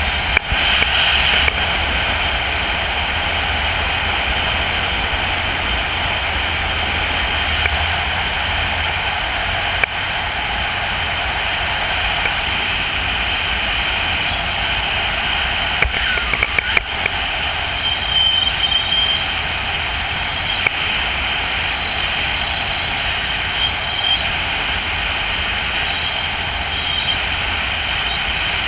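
Steady wind rushing over a helmet-mounted camera during a parachute descent under canopy, with a few brief rustles and knocks around the middle.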